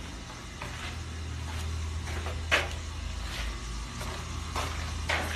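A steady low machine hum, with a sharp knock about two and a half seconds in and another near the end.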